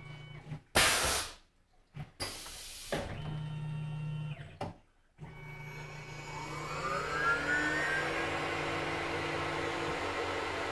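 Tormach PCNC 1100 CNC mill changing tools: a few short loud blasts from the tool changer and drawbar, with a low hum of motion between them. About five seconds in, the spindle spins up with a rising whine and settles into a steady run under a hiss of flood coolant spray.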